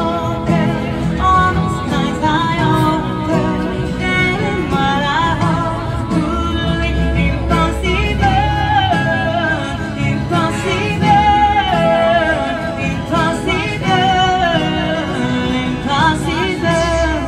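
A woman singing a song into a microphone, accompanied by an acoustic guitar.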